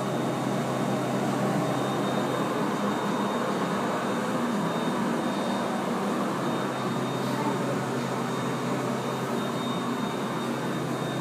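Steady indoor room noise: a low hum and hiss, with a faint high-pitched whine coming and going.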